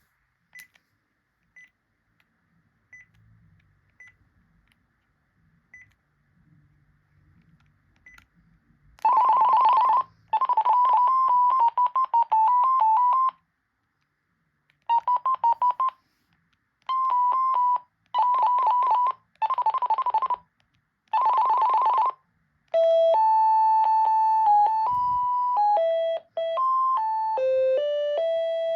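Panasonic KX-TCD440 cordless phone handset playing its ringtones. After a few faint short beeps, several fast trilling electronic rings come in short bursts with gaps between them. About three-quarters of the way in, a simple melody ringtone of held notes takes over.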